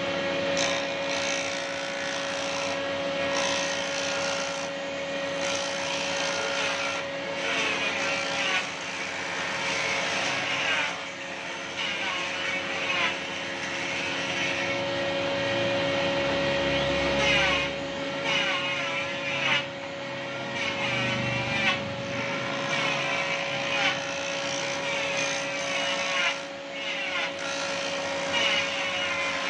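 Combination woodworking machine's jointer running with a steady motor and cutterhead hum, while a wooden board is fed across the cutter in several passes; the rasping cutting noise swells and fades with each pass.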